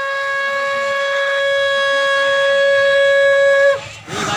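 Conch shell (shankh) blown in one long, steady, loud note that stops abruptly near the end.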